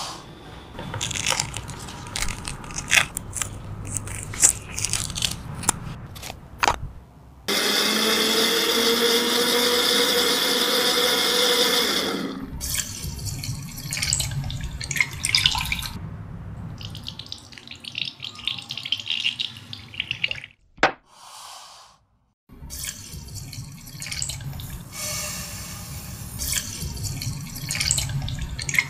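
Mandarin juice being prepared: liquid splashing, pouring and dripping, with scattered small knocks and clicks, and a loud steady machine sound for about four and a half seconds midway that cuts off suddenly.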